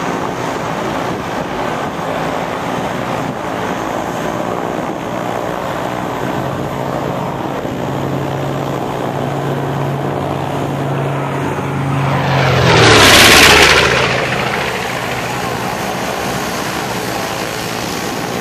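B-25 Mitchell bomber's twin Wright R-2600 radial engines droning on a low pass. The sound swells to a loud peak about two-thirds of the way through as the bomber goes by, the pitch dropping as it passes, then eases back to a steadier drone as it flies away.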